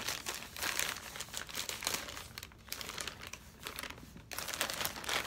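A mail-order shipping bag being opened and handled, its packaging rustling and crackling in a continuous run of small crackles that pauses briefly about halfway and again near the end.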